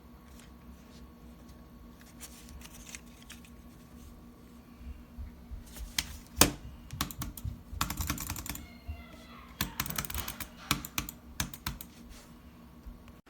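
Keyboard and mouse clicking at a computer: scattered clicks at first, then from about six seconds in one sharp loud click followed by fast clusters of keystrokes and clicks.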